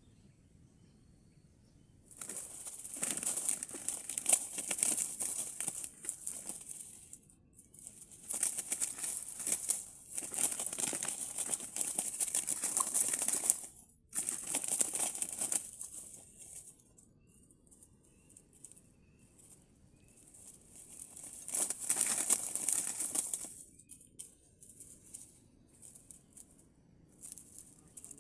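Wild junglefowl beating its wings in four bursts of flapping and rustling, the longest several seconds each, with quiet gaps between.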